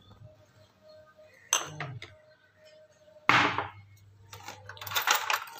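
Kitchen handling clatter at a rack of glass spice jars: a single click, a brief louder scrape a little after three seconds, then a quick run of clinks and rattles near the end.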